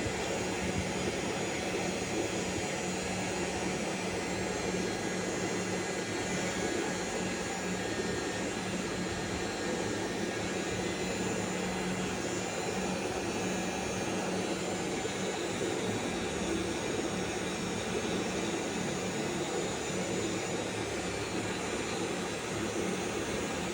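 Steady machine whirr: an even rushing noise with a constant low hum, without changes in speed or level.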